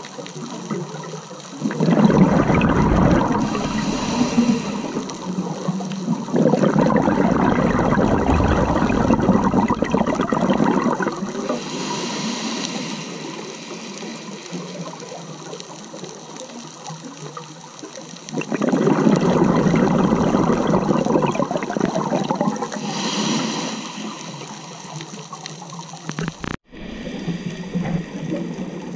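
Scuba diver's exhaled bubbles from the regulator rushing past an underwater camera, in three long surges of several seconds each, with quieter steady water noise between them. The sound cuts out briefly near the end.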